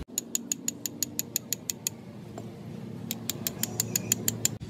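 Ratchet wrench clicking rapidly, about eight clicks a second, in two runs with a pause of about a second between them.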